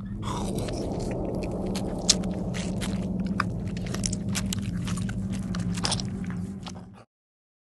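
Dense crackling and clicking over a steady low drone, cutting off abruptly about seven seconds in.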